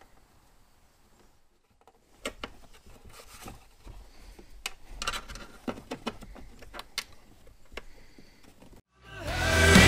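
Faint rustling and scattered small clicks as a parking brake cable is handled and pushed under the cab carpet. Loud background music fades in near the end.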